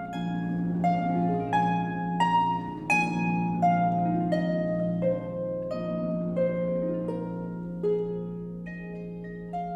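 Solo concert pedal harp playing a slow melody of single plucked notes over ringing low notes, getting softer toward the end.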